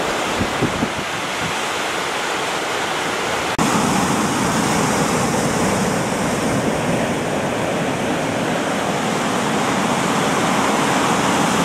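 Sea surf breaking and washing against a rocky shore: a steady rush of water, a little louder after a sudden step about three and a half seconds in.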